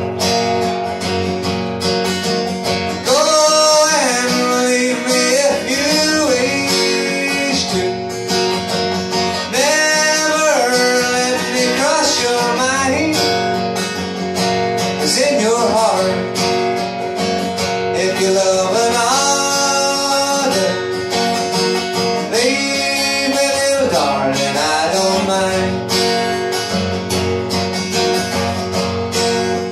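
Acoustic guitar strummed steadily in a country rhythm, with a wordless vocal melody over it in rising and falling phrases of a few seconds each.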